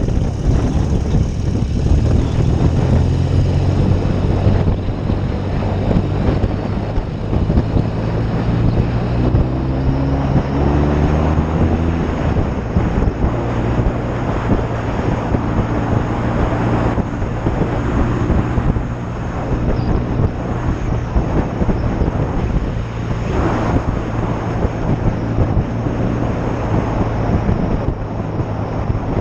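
1972 BSA Lightning 650 parallel-twin engine running on the move, with wind rushing over the microphone. The engine pitch shifts several times during the first dozen seconds, then holds steady.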